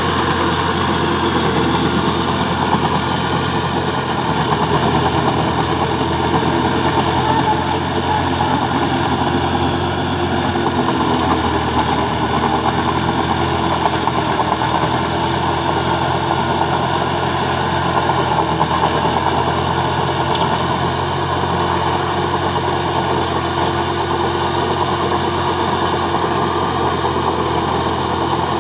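Tractor engine running steadily while it pulls a rotary tiller, puddling waterlogged soil for a rice field.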